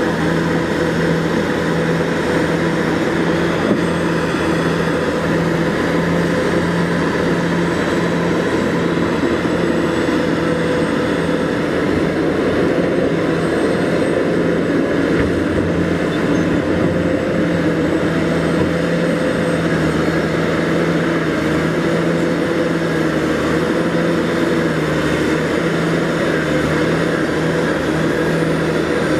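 Caterpillar 983 crawler loader's diesel engine running steadily and loud while the machine works a pile of loose rock with its bucket.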